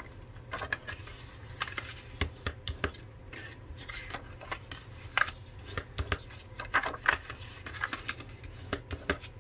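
Pink 65 lb cardstock being handled, folded and creased with a bone folder on a cutting mat. Paper slides and rustles, with irregular sharp taps and scrapes throughout.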